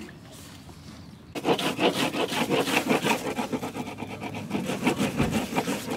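A bar of surf wax rubbed briskly back and forth over a surfboard's deck: a rapid, scratchy rubbing that starts about a second and a half in.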